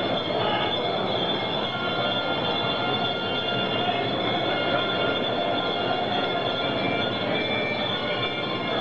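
Steady din of a large, crowded wholesale fish market hall: many people milling about under a dense wash of noise, with sustained high metallic tones ringing over it.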